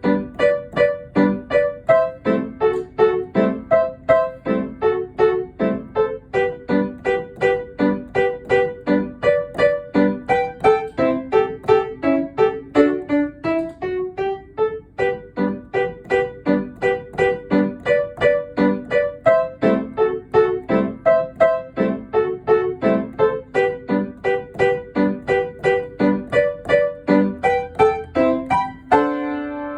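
Solo piano playing a lively teaching piece in a steady pulse of short, detached notes in the middle register. A rising run comes about halfway through, and the piece closes on a held chord near the end.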